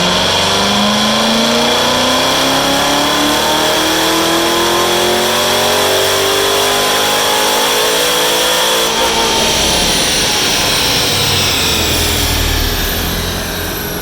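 Supercharged Chevrolet Camaro ZL1's 6.2 L V8 making a wide-open-throttle baseline pull on a chassis dyno: engine speed climbs steadily for about nine and a half seconds, then the throttle closes and the engine winds down as the rollers coast.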